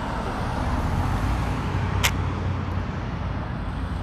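Road traffic at a street intersection: a motor vehicle's low engine rumble swelling as it passes through the middle, with a single sharp click about two seconds in.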